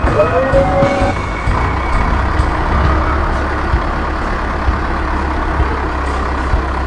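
Heavy diesel engine running steadily, with a few light knocks and a brief whine in the first second.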